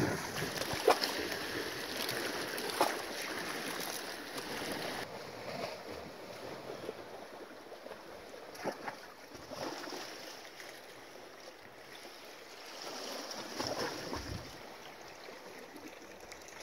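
Wind and sea water washing steadily, with a few scattered knocks and clicks.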